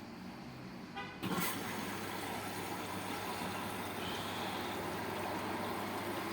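LG 6 kg washing machine running: a short rattling buzz and a loud clunk about a second in, then a steady rushing noise with a low hum.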